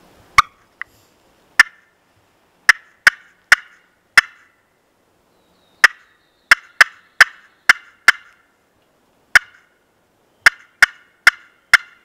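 Turkey clucks: sharp single notes in irregular runs of one to six, cutting-style, as used to call in a gobbler.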